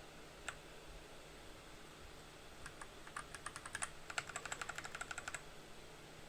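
Keys on a Dark Project KD87A mechanical keyboard with tactile Gateron Brown optical switches being pressed: a single keystroke near the start and another about half a second in, then a quick run of keystrokes from about three seconds in, stopping about two and a half seconds later.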